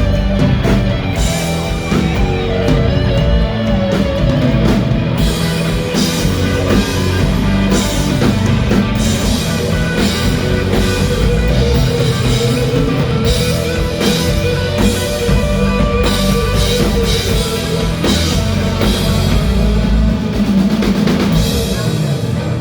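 A live rock band plays an instrumental passage, with drum kit, electric guitar and sustained keyboard notes, and no vocals.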